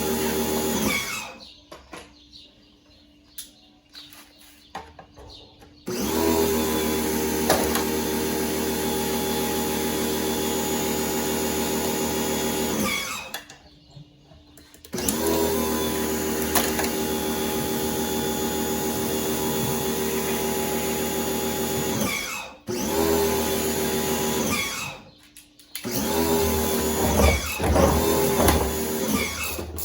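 Electric power tool motor running steadily at one pitch in runs of several seconds, switched off and started again several times.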